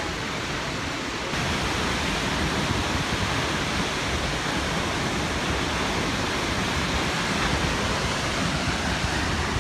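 Vernal Fall's water plunging and spraying close by: a steady, even rushing noise that gets a little louder about a second in.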